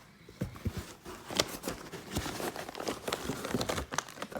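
A cardboard box being opened by hand and its contents handled: scattered taps, light knocks and rustling of packing.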